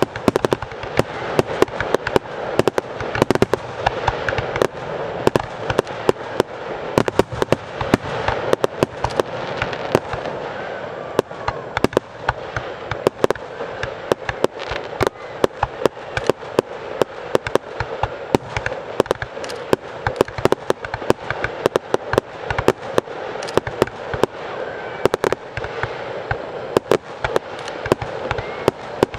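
Fireworks display: a dense, continuous barrage of shells bursting, several sharp bangs a second over a steady crackling haze, with no pauses.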